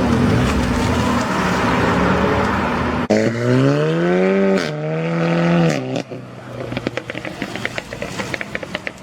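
Modified car accelerating hard, its engine revving up, dropping for a gear change, then revving up again before cutting off about six seconds in. Loud engine and road noise come before this, and a quick run of faint short pops follows.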